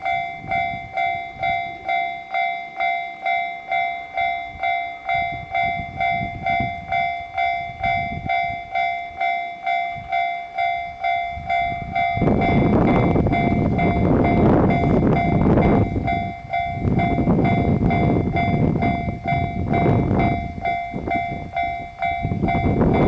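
Level-crossing alarm ringing a pulsing electronic ding about twice a second. About twelve seconds in, a JR 681 series 'Shirasagi' electric limited-express train starts passing over the crossing, its wheel and running noise swelling and dipping as the cars go by, while the alarm keeps ringing.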